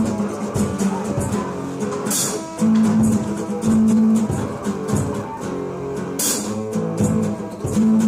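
Band music: guitar over bass and a drum kit keeping a steady beat, with a bright crash about two seconds in and again about six seconds in.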